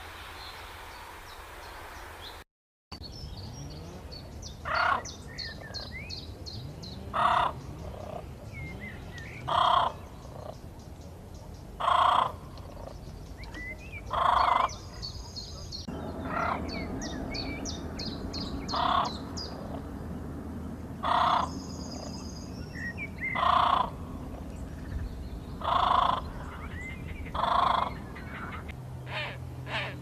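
A bird giving a loud, harsh call about every two and a half seconds, around ten calls in all. Small birds chirp high and quick in the background.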